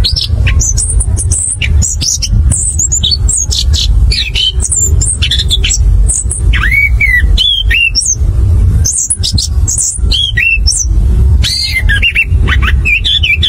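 Chestnut-capped thrush (anis kembang) singing a fast, varied run of short high whistled notes and slurs, over a steady low rumble.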